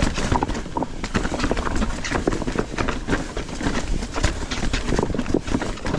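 Mountain bike riding fast over a rocky trail: a dense, irregular clatter of tyres, chain and frame knocking over rocks, over a steady low rumble.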